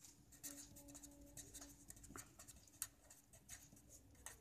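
Faint scratching of a felt-tip marker writing on paper in short strokes.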